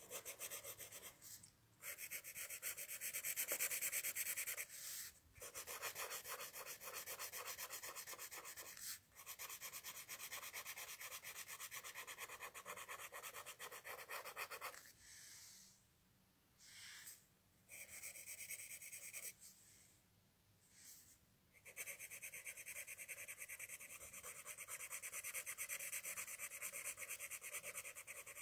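Pencil shading on paper: fast back-and-forth scratching strokes in long runs, broken by a few short pauses and a longer near-quiet stretch in the middle.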